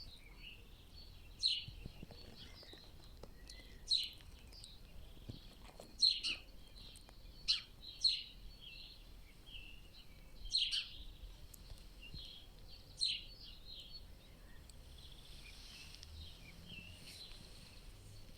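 Forest songbirds singing: short, sharp, high calls repeat every couple of seconds, with softer twittering notes between them. After about 13 seconds in only the softer twittering is left.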